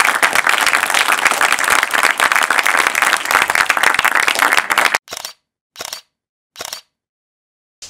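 Audience applauding, a dense steady clapping that cuts off suddenly about five seconds in. Three short, separate bursts of sound follow, less than a second apart.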